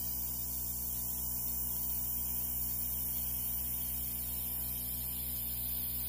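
Airbrush running on its compressor: a steady motor hum with a constant high hiss of air from the nozzle, blowing over wet alcohol ink.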